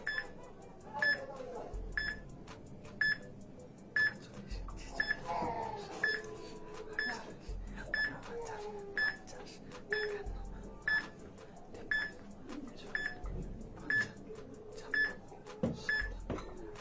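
Short electronic timer beeps, about one a second, counting down the challenge clock. Faint background music runs underneath with a low thud every few seconds.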